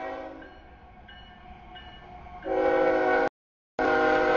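CSX freight locomotive horn sounding a chord for a grade crossing as the train arrives. It starts moderately, eases off, then blows much louder about two and a half seconds in. The audio drops out abruptly for about half a second near the end.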